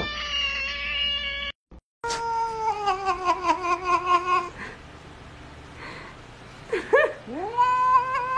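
Cats yowling: one call breaks off at a cut about a second and a half in, then a held cat gives a long wavering yowl that falls in pitch, a short rising squeak, and another long wavering yowl near the end.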